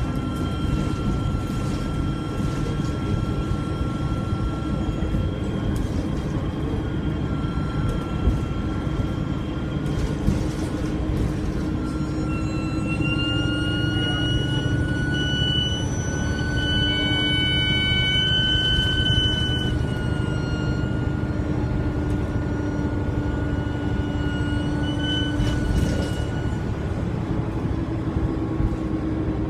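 Alexander Dennis Enviro300 bus's diesel engine running under way with a low rumble, topped by a loud, high turbo whistle. About halfway through, the whistle rises in pitch over several seconds, then falls back.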